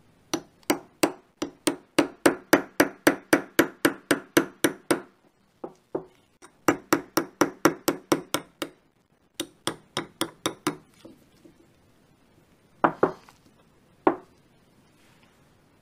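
Small hammer tapping a pin punch in quick, even strokes, about three or four a second, drifting the ejector pin out of a Desert Eagle Mark XIX bolt. The taps come in three runs with short pauses between them, followed by two separate louder knocks near the end.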